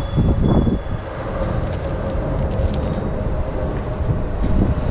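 Wind buffeting the microphone with a steady low rumble, and a few faint, high tinkles from wind chimes.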